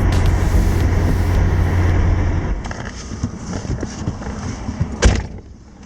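Car running on the road, a steady low rumble that drops away about two and a half seconds in as it slows, followed by quieter scattered noises and one sharp knock about five seconds in.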